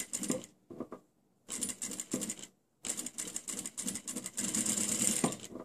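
Sewing machine stitching a rolled hem in short runs, stopping and starting: a few stitches at the start, about a second of stitching near two seconds in, then a longer run of nearly three seconds.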